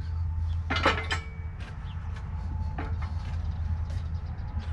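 Skid steer engine idling with a steady low hum, and a sharp metal clank about a second in as a steel jack stand is set down on wooden pallets, followed by a lighter knock near three seconds in.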